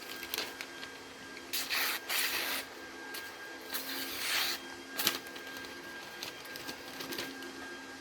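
A knife blade stroked twice across a strop, two rasping swishes of about a second each, over the steady hum of a running sharpening machine, with a sharp click about five seconds in. The stropping clears the last micro burr from the freshly sharpened edge.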